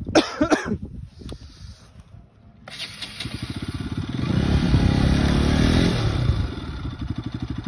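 A sport motorcycle's engine is revved hard with its rear tyre spinning in loose sand, trying to drive the bike out where it is stuck. The engine picks up about three seconds in, rises in pitch and loudness, then falls back after about six seconds.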